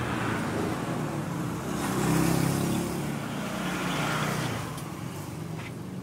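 A road vehicle passing on the street: its engine and road noise swells to a peak about two seconds in, then fades away.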